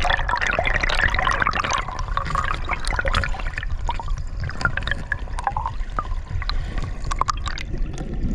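Stream water rushing and bubbling, heard with the microphone underwater where a current plunges in and drives a plume of air bubbles. The rush is continuous, with many small clicks and pops.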